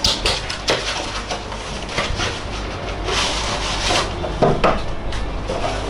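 White cardboard packaging being handled: flaps folded back and an insert slid out, rubbing and scraping with several sharp clicks, including one longer scrape a little past the middle.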